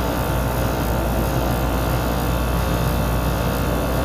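Scroll compressor of a walk-in freezer condensing unit running steadily, held on so that it pumps the suction side down into a vacuum. It makes an even hum and whine of many steady tones.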